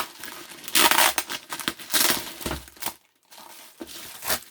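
Plastic bubble wrap crinkling and rustling as it is handled and pulled open, in irregular bursts, with a short pause about three seconds in.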